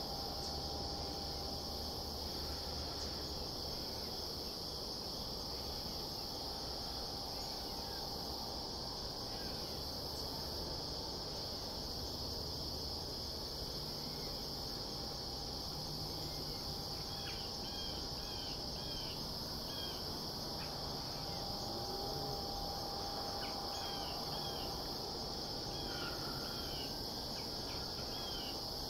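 Steady chorus of crickets trilling without a break, in one high band. Several short bird chirps come in during the second half.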